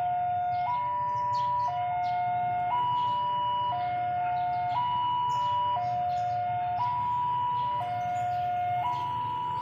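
Electronic two-tone warning siren alternating between a low and a high note, each held about a second, over a steady low rumble.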